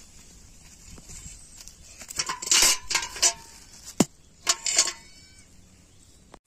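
Stainless steel bucket and its metal handle clanking as the bucket is set down on the ground: a clatter about two seconds in, a single sharp knock about four seconds in, then another clank that rings briefly.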